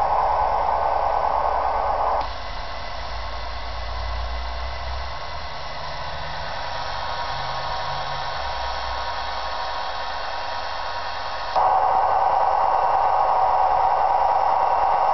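Model-railway sound decoder playing the Bachmann DDA40X's diesel engine sound steadily through small speakers, with a slow pulsing low rumble. About two seconds in it switches abruptly to a thinner, hissier sound through the other pair of speakers, and switches back near the end.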